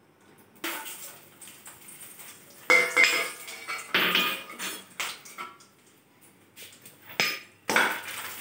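Steel spoon clattering and scraping against a kadai as dried red chillies are dropped into hot oil and stirred: a string of sharp metallic knocks and clinks, the loudest about three and four seconds in.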